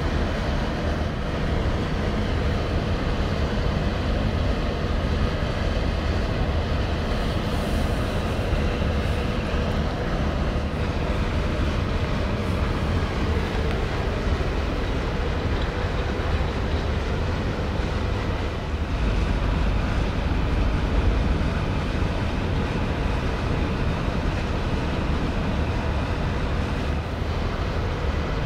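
Steady low rumble of a ferry's engines as the ship manoeuvres into its berth, with a faint mechanical hum on top.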